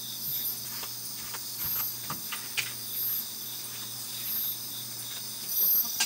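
Night chorus of crickets and other insects: a steady high-pitched trill, with a louder high chirp repeating about every second and a half. A few faint clicks in the first half.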